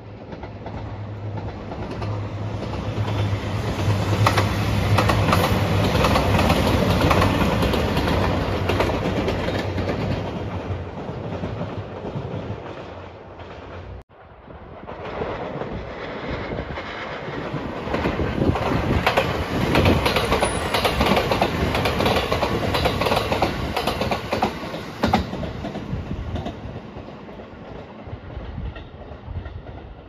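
A JR Shikoku 2700 series diesel train passes, its low engine drone and wheels clattering over rail joints building and then fading. After an abrupt cut, a Rapid Marine Liner electric train passes with wheel clatter, building and fading again.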